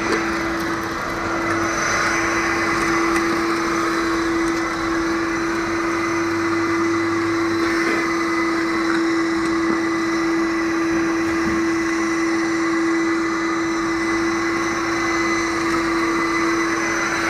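Industrial stainless-steel drum vacuum cleaner running steadily: a constant motor whine over rushing air.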